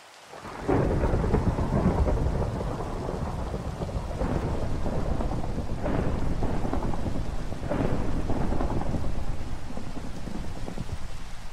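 A long roll of thunder over steady rain. It breaks about half a second in and rumbles on, swelling again three times before slowly easing off near the end.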